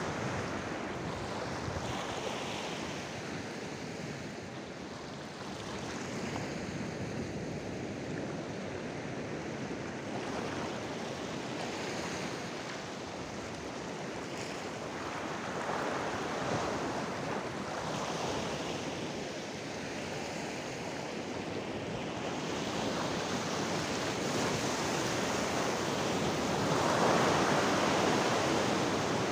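Sea waves surging and breaking against shoreline rocks, swelling and falling away every few seconds, with the biggest surge near the end.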